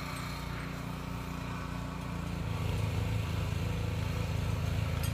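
Gas snowblower engine running steadily, growing louder about two and a half seconds in.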